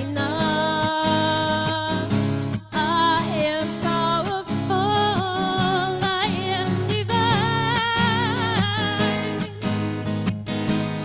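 Live singing over a strummed acoustic guitar; the voice holds long, slightly wavering notes and slides between them.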